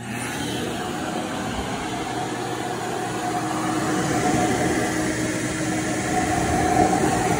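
Shop vacuum running steadily, its motor blowing air out through the hose, with a constant hum under a whooshing noise that swells slightly in the second half.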